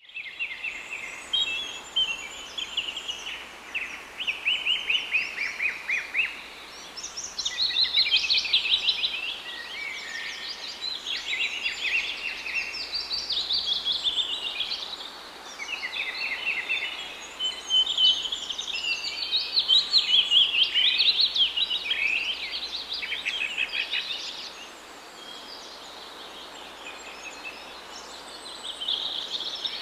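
Several songbirds singing at once, a busy chorus of rapid chirps and trills that eases off briefly near the end.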